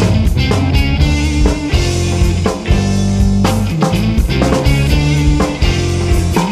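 Rock music with electric guitar, bass and a drum kit keeping a steady beat.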